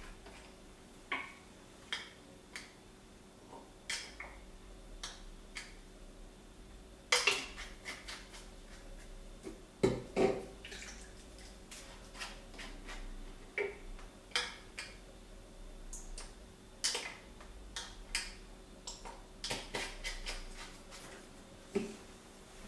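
Small glass dropper bottles clicking and clinking as they are handled, opened and set down on a kitchen countertop beside a ceramic cup: a string of sharp clicks and light knocks, the loudest about seven and ten seconds in.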